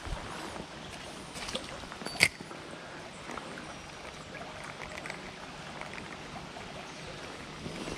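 River water flowing steadily, with a few sharp clicks, the loudest about two seconds in.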